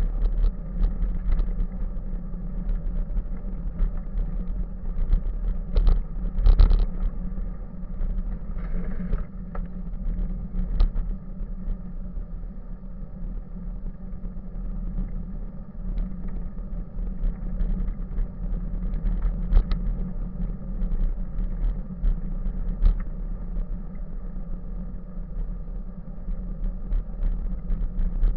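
Bicycle riding along a paved path heard from a bike-mounted camera: a steady low rumble with a hum, broken by frequent sharp clicks and rattles as the bike goes over bumps.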